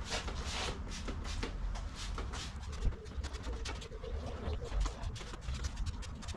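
Motorcycle crash bars being degreased: a quick series of short hissing strokes, several a second.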